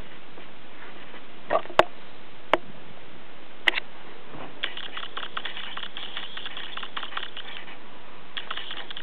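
Pen scratching quickly on paper in short strokes, writing by hand, with a brief pause and a fresh start near the end. It is preceded by four sharp clicks, and a steady hiss runs underneath.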